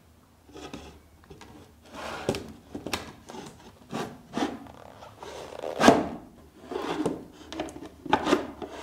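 Slotted laminated particleboard panels being slid together by their notches into a divider grid: wood rubbing and scraping, with a series of light knocks. The loudest knock comes about six seconds in.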